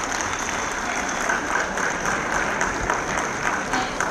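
Audience applauding: many people clapping at once, steady and continuous.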